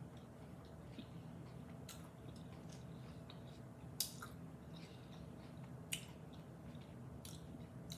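Quiet chewing of a crunchy hard-shell taco, with a few sharp clicks about two seconds apart over a faint low steady hum.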